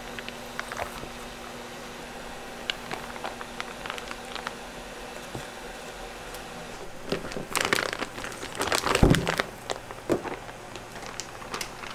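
Plastic bag crinkling and crackling as gloved hands peel it open, with scattered crackles at first and a denser, louder bout of rustling about seven seconds in. Near nine seconds a single soft thud as the block of bean paste drops out of the bag into a plastic tray.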